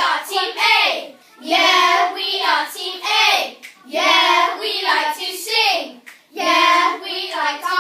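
A group of boys chanting a call-and-response rap vocal warm-up together, in short rhythmic phrases.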